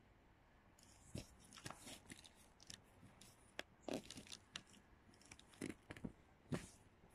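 Faint rustling and crinkling of tissue-paper stuffing and fabric handling noise as a hand feels around inside a messenger bag, with scattered short scratches and taps.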